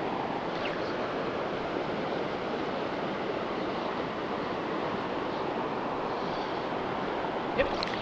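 Shallow rocky stream flowing steadily over stones, with one brief sharp sound near the end.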